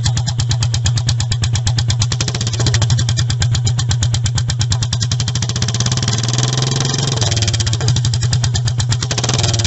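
Royal Enfield Meteor 350's single-cylinder engine idling through an open header pipe with no muffler or catalytic converter, a loud, rapid, evenly spaced run of exhaust pulses.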